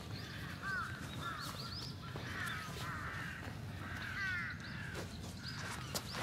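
Wild birds calling repeatedly outdoors, short arched notes coming in quick clusters of two or three. A steady low rumble of wind on the microphone lies underneath.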